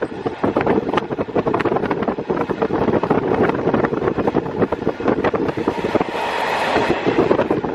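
JR East KiHa 48 diesel railcar running at speed, heard from inside the car: steady engine and running noise mixed with wind rushing in through an open window, with a smoother, higher hiss for about a second around six seconds in.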